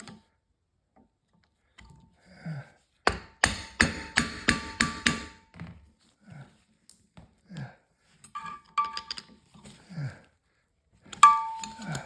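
Hammer striking metal bench-vise parts during reassembly: a quick run of about seven ringing strikes, a few lighter clinks, then one loud ringing strike near the end.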